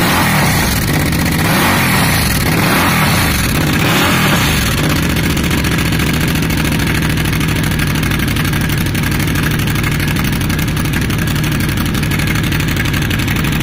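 Hyosung GV650 Aquila Pro's V-twin running through an aftermarket Akrapovič twin exhaust, revved over the first few seconds and then settling to a steady idle.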